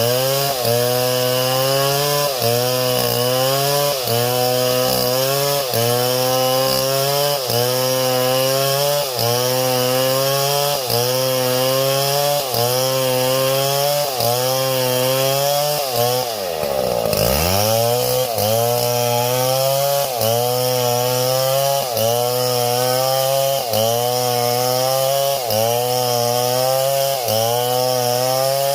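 Small chainsaw running hard, its engine pitch dipping and recovering about every second and a half as if loaded in a cut. About two-thirds of the way in it slows sharply, then picks back up.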